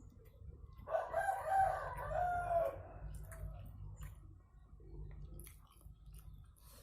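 A rooster crowing once, one long call of about two seconds starting about a second in, with faint clicks around it.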